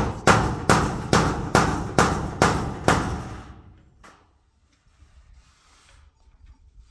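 Claw hammer driving a nail at the base of a corrugated metal sheet: about eight quick blows, two or three a second, each ringing briefly. The blows stop about three seconds in.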